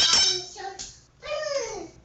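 Cucak ijo (green leafbird) singing. It opens with a sudden loud burst of rapid chattering notes, then gives short whistles and a long whistled note sliding down in pitch.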